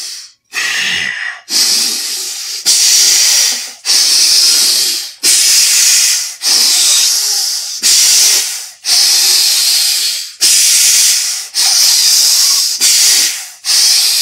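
A man breathing forcefully in and out through his nose, about a dozen loud rushing breaths of roughly a second each, with one nostril held shut partway through. It demonstrates what he calls clean, mucus-free nasal passages.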